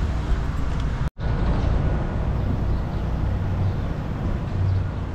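Low, steady vehicle rumble with a brief dropout to silence about a second in.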